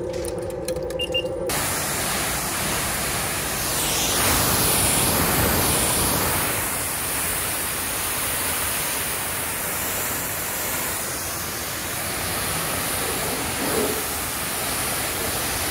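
High-pressure car-wash wand spraying water against an SUV's rear hatch and window: a loud, steady hiss of spray. It starts about a second and a half in, after a short steady hum.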